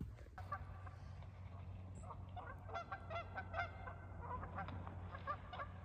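Several geese honking in many short, repeated calls, sparse at first and coming thick and fast from about halfway through.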